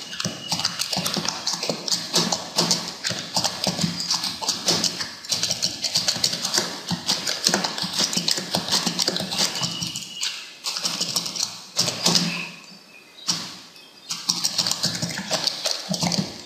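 Typing on a computer keyboard: a fast, steady stream of key clicks, with a short pause about three-quarters of the way through.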